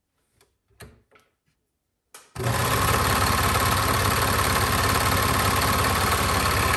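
A few faint handling clicks, then about two and a half seconds in a Singer QuantumLock 5 serger starts and runs at a fast, steady speed, overlocking a fabric edge.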